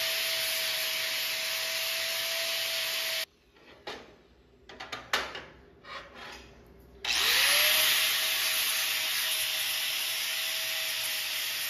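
Handheld angle grinder grinding a steel plate, a steady whine over a loud hiss. It stops about a quarter of the way in, a few knocks and clatters of handling follow, then a little past halfway the grinder spins up with a rising whine and grinds on steadily.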